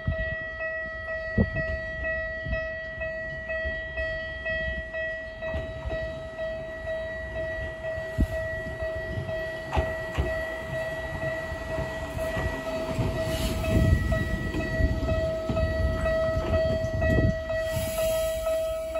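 A Japanese level-crossing alarm rings in a steady run of quick, repeated dings. Under it a Gakunan Railway electric train rumbles, growing louder in the second half as it pulls in to the platform, with a few sharp knocks from its wheels.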